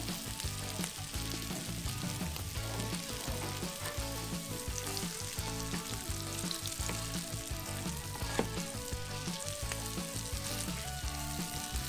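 Breaded fish fillets sizzling steadily as they fry in olive oil and butter in a frying pan, with one sharp tap about eight seconds in.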